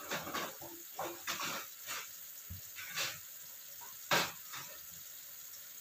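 Chicken feet and eggs simmering in a thick soy and black-pepper sauce in a nonstick frying pan: irregular bubbles popping and spluttering over a low hiss, the loudest pop about four seconds in.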